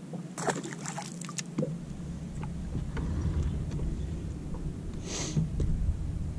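Lake water sloshing against a boat's hull, with a low rumble that sets in about a second and a half in. A quick run of clicks and taps comes about half a second in, and a short hiss a little past five seconds.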